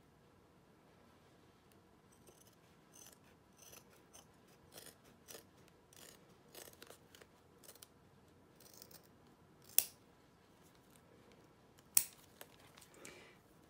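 Scissors snipping in a run of short, separate cuts, trimming around the edges of a stitched in-the-hoop fabric piece. Two cuts stand out louder and sharper, one about two-thirds of the way through and one near the end.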